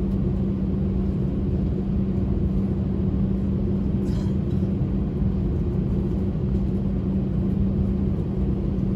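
Steady low rumble and a constant hum inside the cabin of an Airbus A320 on the ground before takeoff, with its engines running.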